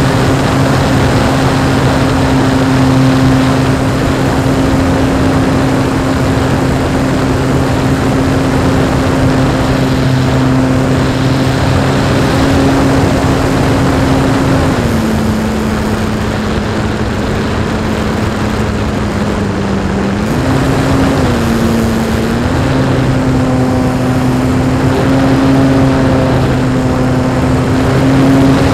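Electric motor and propeller of a radio-controlled Pitts Special model running steadily in flight, with wind rushing over the onboard camera. About halfway through, the pitch drops as the throttle comes back, wavers briefly, then rises again to its cruising note.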